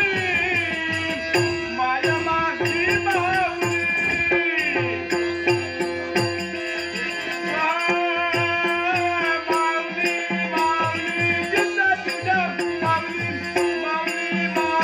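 Dashavatar stage accompaniment: a harmonium holding sustained notes over steady pakhawaj drum strokes, with small hand cymbals clashing rapidly throughout.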